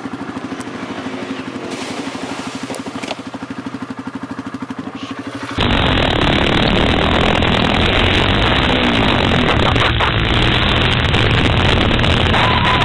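ATV engine running with a steady, even pulse. About five and a half seconds in, a cut to a louder, rougher clip of an ATV engine under heavy noise.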